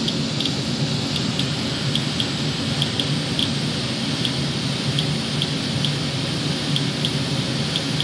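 Inspector Alert Geiger counter clicking irregularly, about two clicks a second, as it reads around 126–128 counts per minute against an air filter: a count well above the house's usual background of about 30, which the owner takes for radioactive contamination caught in the filter. Under the clicks runs a steady rushing noise.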